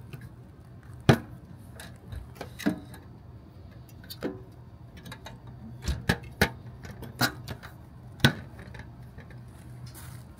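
Stainless steel Oyster Tempo cooler being opened and closed: about eight sharp metallic clicks and knocks from the lid latch and lid, with glass bottles clinking as two are taken out.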